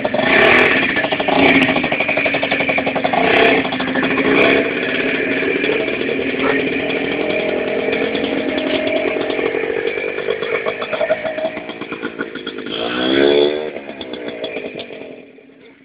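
Keeway Hurricane 50cc two-stroke scooter engine running under way, surging with the throttle several times in the first few seconds, then holding steady. Its pitch eases down, rises in a short rev about 13 seconds in, and the sound dies away near the end.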